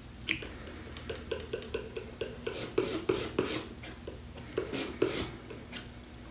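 Paintbrush mixing oil paint on palette paper: a quick run of short taps and scrapes, about three or four a second, as the bristles work the yellow into the colour.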